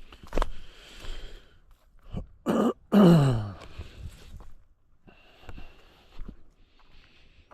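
A man clearing his throat: two harsh coughing bursts about three seconds in, the second louder and falling in pitch, with light scattered knocks and rustling around them.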